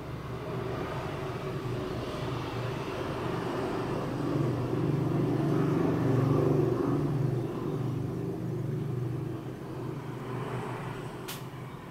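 A motor vehicle's engine hum going by, swelling to a peak about halfway through and then fading. A single sharp click sounds near the end.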